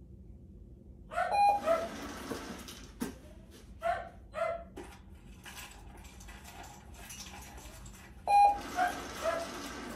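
A puppy giving short, high-pitched yips in little clusters of two or three, with pauses of a few seconds between.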